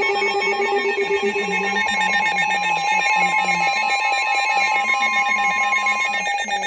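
Emergency Alert System alert tone: several steady electronic pitches held together, with one of the upper tones stopping about six seconds in.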